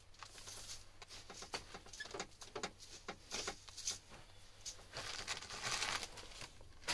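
Dry grain feed being poured from a scoop into a metal bucket and stirred by hand: a run of short ticks and scrapes, with longer stretches of rustling grain in the second half.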